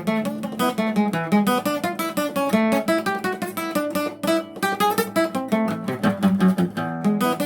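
Acoustic guitar (Brazilian violão) playing a choro, a quick run of plucked melody notes over moving bass notes.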